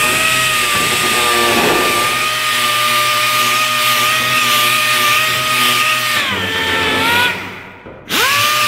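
Pneumatic disc sander whining at a steady high pitch against a brazed steel door panel, sanding off the burnt flux residue. About six seconds in its pitch falls and it runs down briefly, then it spins back up near the end.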